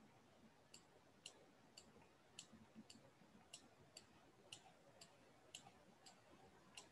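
Faint, sharp clicks, about two a second, made while grid lines are drawn on a computer. Otherwise near silence.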